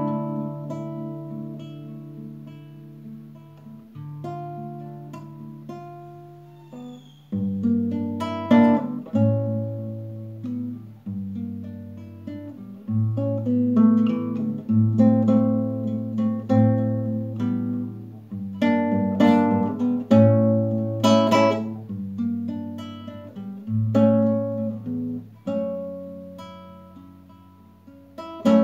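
Nylon-string classical guitar played solo: a few soft plucked notes left to ring and fade for about seven seconds, then rhythmic strummed and plucked chords over a regular bass line.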